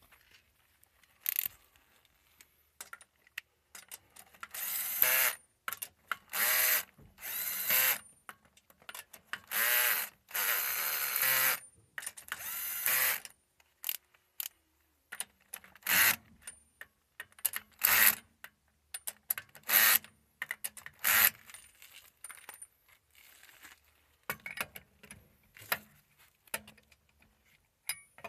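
Cordless electric drill-driver, not an impact driver, spinning the car's wheel lug nuts in about six short whirring runs, its pitch sliding as the nuts seat. A few sharp metallic clicks follow.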